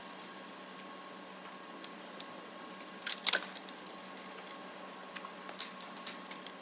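Clinks and rattles of parts being worked free and lifted out at the timing end of an engine bay, in two bursts: one about three seconds in and another near the end, over a faint steady hum.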